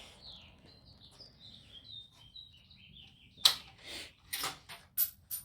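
Small birds chirping in short high notes, then about three and a half seconds in a loud sharp click followed by several quicker clicks and clacks.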